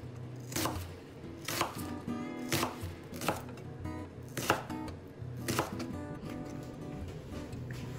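Chef's knife slicing through a new onion and knocking on a plastic cutting board, a stroke about once a second.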